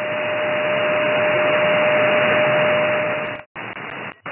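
Shortwave SSB receiver audio from an SDRplay RSPduo on a Mini Whip active antenna: steady band hiss with a steady whistle of a carrier tone. About three and a half seconds in, the audio cuts out briefly as the receiver is retuned to another band, then the hiss returns with a second short dropout and a few clicks.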